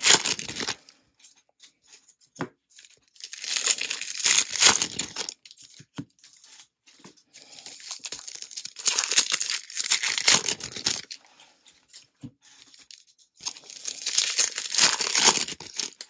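2024 Bowman baseball card pack wrappers being torn open and crinkled by hand, in three long bursts of tearing a few seconds apart, after the tail of an earlier one at the start.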